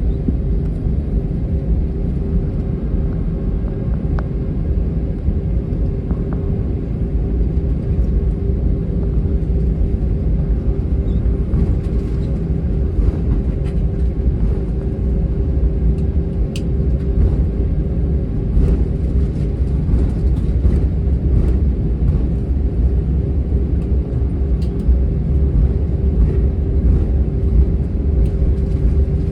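Airbus A321's IAE V2500 engines at low thrust heard from inside the cabin while the airliner taxis: a steady low rumble with an even hum, and occasional faint clicks and rattles.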